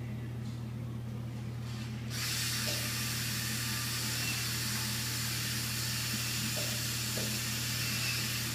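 Surgical power drill running steadily as it drills a screw hole in the tibia for a TPLO plate screw, heard as an even hiss that starts about two seconds in and stops right at the end.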